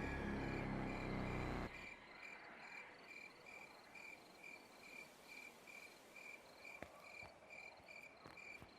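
Faint, steady cricket chirping, about two to three even chirps a second, after low music cuts off a second and a half in.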